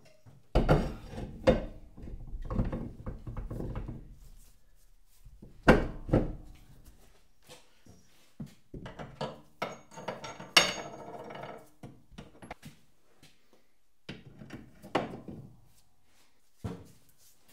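Heavy metal tooling, such as tapping heads, being set down and shifted on a steel wall shelf. Irregular thunks and knocks come with some metallic clinks and clatter, the heaviest about six seconds in. A ringing clink comes around ten seconds.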